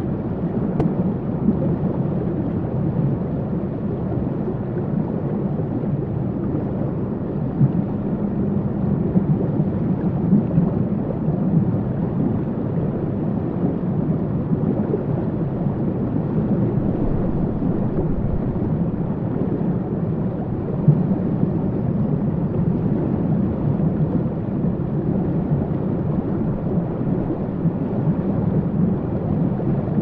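Steady, deep rushing of flowing water, a low even wash with no distinct splashes or calls, unchanged throughout.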